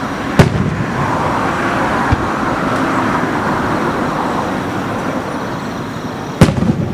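Fireworks display: two loud shell bursts, one just under half a second in and one near the end, with a fainter thud about two seconds in and a steady rushing noise between them.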